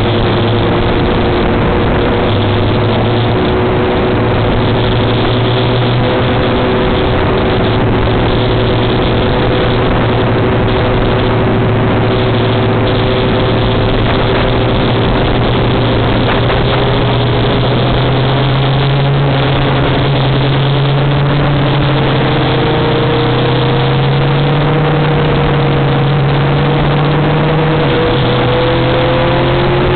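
Motorcycle engine running at a steady cruising speed under loud wind rush, its pitch rising over the last few seconds as it accelerates.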